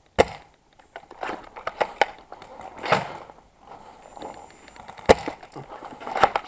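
Crunching, scraping handling noises from an airsoft player's gear and movement, broken by two sharp clicks, one just after the start and one about five seconds in.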